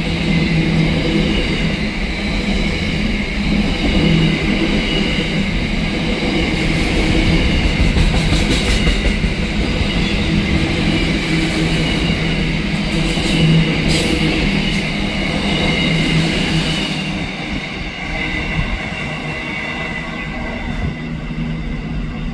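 Container freight train wagons rolling past: a steady rumble of steel wheels on rail with a faint high wheel squeal and a few sharp clicks, fading after about 17 seconds as the end of the train passes and draws away.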